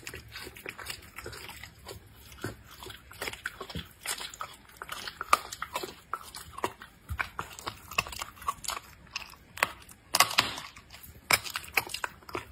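Leopard cub eating raw meat and chicken from a dish: irregular wet licking, smacking and chewing sounds, close up, with a few louder bites.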